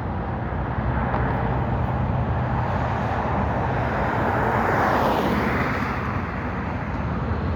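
EMD GP-series diesel locomotive leading a freight train past. A steady low engine rumble, with the train noise swelling to its loudest about five seconds in and then easing off.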